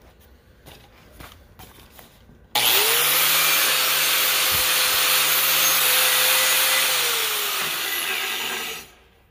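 Corded angle grinder with a wire cup brush switched on about two and a half seconds in, spinning up and scrubbing the steel of a planter arm to clean it for welding; near the end it is switched off and its motor winds down. Before it starts there are only a few light handling clicks.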